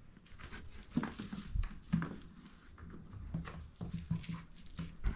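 Scattered soft knocks, taps and rustles, about a dozen spread over a few seconds, as toy mice are gathered up by hand off a hardwood floor while the phone is handled.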